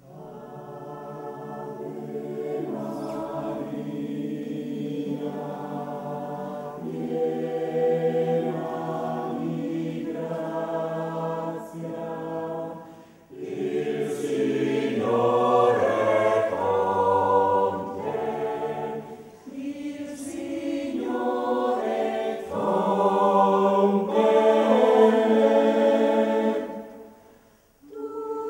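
A mixed choir of men's and women's voices singing a cappella, in sustained phrases with brief breath pauses between them.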